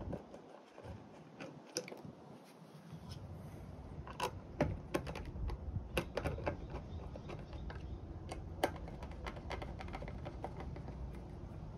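Irregular light clicks and knocks as the top of a water filter housing is handled and fitted back into place, with a low steady hum starting about three seconds in.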